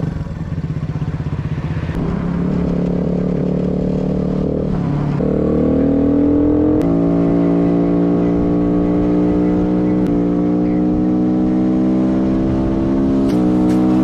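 2016 AJP PR3 150 enduro motorcycle's single-cylinder four-stroke engine under way, accelerating through the gears. Its pitch climbs steadily and drops at each of three gear changes, about five, seven and thirteen seconds in.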